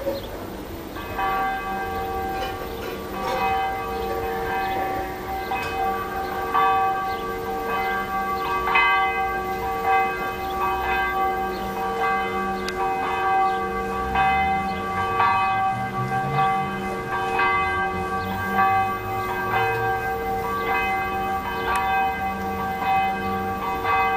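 Church bells ringing, several bells struck over and over at an uneven pace, their tones hanging on between strikes. A low hum rises briefly in pitch a little past the middle.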